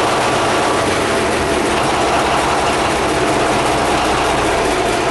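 Caterpillar D342 six-cylinder diesel engine running steadily after its pony-motor start.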